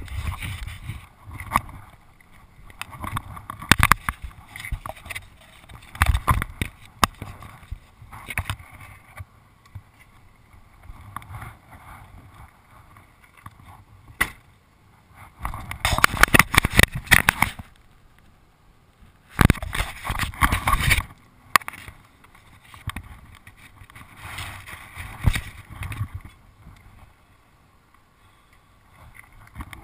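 Irregular muffled knocks, bumps and rustling as a pit bike is handled and moved out of a van. The loudest stretches come about halfway through and again a few seconds later.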